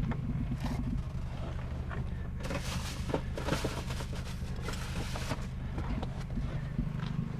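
A steady low engine hum, with a few seconds of rustling and scraping noises in the middle.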